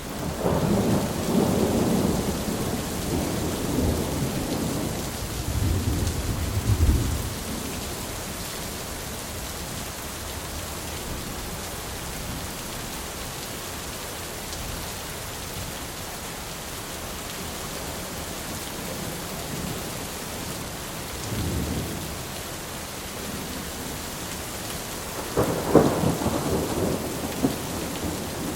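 Thunderstorm: steady rain with rolling thunder. A long rumble runs through the first seven seconds, a fainter one comes about twenty-one seconds in, and a sharper clap with more rumbling comes near the end.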